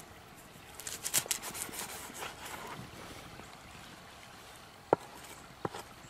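Crackly rustling of wild onion stalks being handled for about two seconds, then two sharp knocks near the end as a large knife chops through the onion bulbs onto a wooden log.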